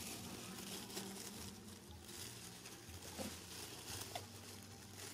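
Faint rustling and crackling, as of dry leaf litter being stirred, with two short squeaks about three and four seconds in.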